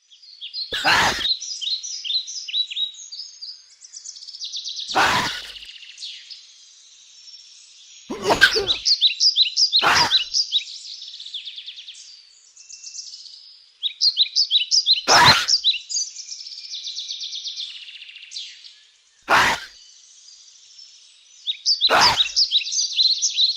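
A small bird chirping in quick runs of high notes, broken about seven times by short, sharp sneezes every few seconds, which the owner takes as a sign that the bird has a cold.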